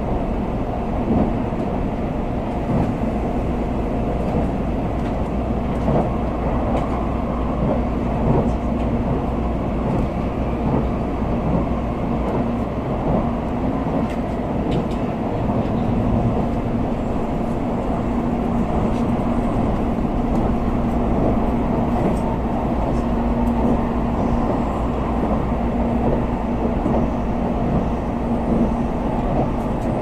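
Cabin noise of an N700A Tokaido Shinkansen train running at speed: a steady rumble of the wheels and running gear with a low, even hum.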